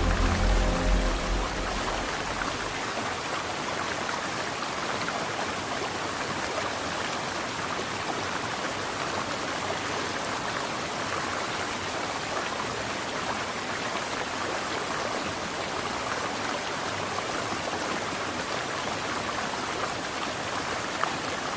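Steady rushing of falling water from a waterfall, with background music fading out in the first second or two.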